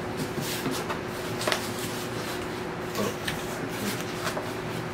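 Corrugated cardboard record mailer box being handled and opened: scattered scrapes and taps of cardboard, a few in all, over a faint steady hum.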